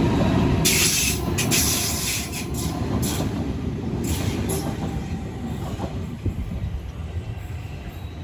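A Sydney suburban electric train rumbling past and fading away as it leaves. There are several short bursts of high-pitched wheel noise in the first half.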